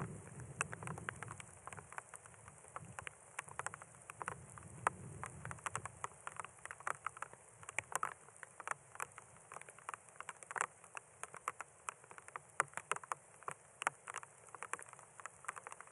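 Scattered raindrops pattering in irregular ticks over a steady high hiss. A low rumble dies away during the first few seconds.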